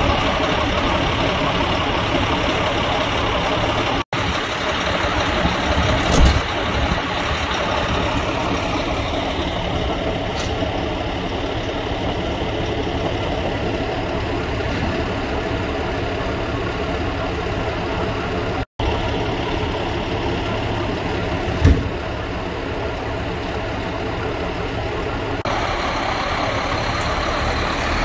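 Scania fire truck diesel engine idling steadily, with a couple of short knocks.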